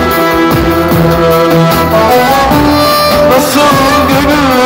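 Live amplified Turkish folk music: a violin and an electronic keyboard play a melody with held and sliding notes over a steady drum beat.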